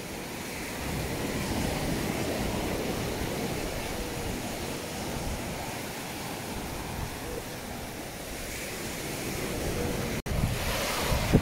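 Small waves washing onto a sandy beach: a steady hiss of surf. Near the end the sound cuts out for an instant and comes back louder, with wind buffeting the microphone.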